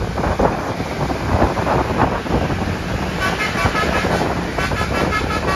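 Bus telolet horn (Basuri multi-tone air horn) playing a quick tune of changing notes, twice over, from about halfway in. Wind buffeting the microphone and road noise run throughout.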